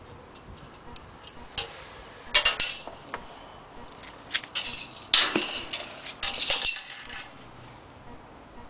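Clicks and light metallic rattles of a steel tape measure being handled, its blade and end hook sliding and tapping against a wooden table top. They come in several short bursts, loudest around the middle.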